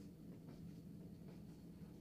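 Near silence: faint steady room hum.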